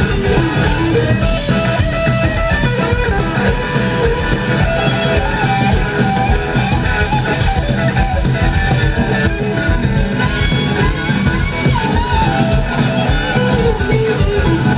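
A live blues-rock band playing: two electric guitars over a drum kit, with a lead guitar line whose notes glide in pitch.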